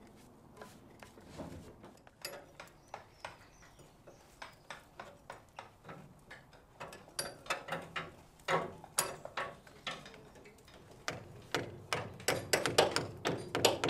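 Hand tools striking rusty steel on a steam locomotive's frames and axle-box gear, chipping off rust and scale: a string of sharp knocks and taps, sparse at first, then coming faster and louder about halfway through.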